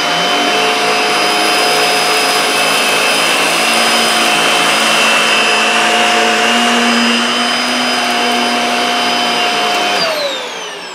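Dyson Small Ball Multifloor upright vacuum cleaner running in regular (not max) mode while vacuuming carpet: a steady motor whine over loud airflow hiss. About ten seconds in, the motor winds down with a falling whine.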